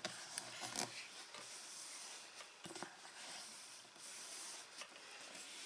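Faint rubbing of hands on paper as glued design paper is pressed down onto a cardboard box so the glue can set, with a few soft paper clicks near the start and around two and a half seconds in.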